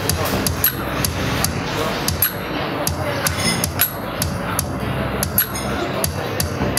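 Sharp knocks, several a second and unevenly spaced, over low steady tones from an electric keyboard.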